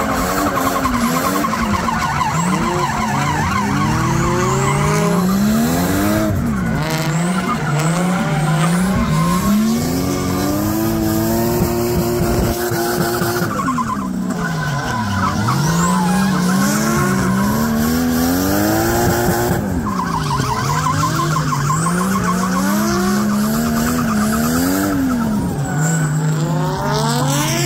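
Drift cars sliding sideways, engines revved hard, their pitch climbing and dropping sharply over and over, with tyres squealing on the skid pad.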